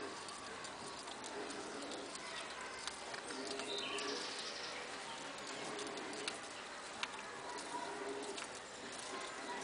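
A three-toed sloth chewing a Cecropia leaf: scattered soft clicks. Short low calls repeat in the background.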